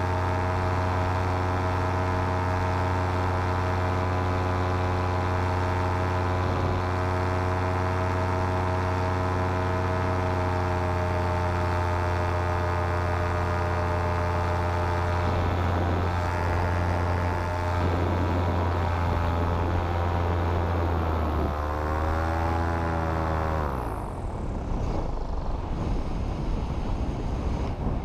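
Paramotor engine running steadily, then wavering about 21 seconds in and falling in pitch until it quits about 24 seconds in: an engine-out in flight. After it stops, wind rushes over the microphone.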